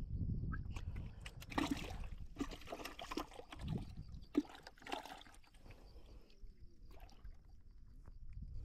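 Light water splashing and trickling in a few irregular bursts, fading out in the second half.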